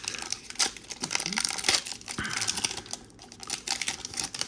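Foil booster pack wrapper crinkling as it is handled, with crackly rustling that thins out near the end.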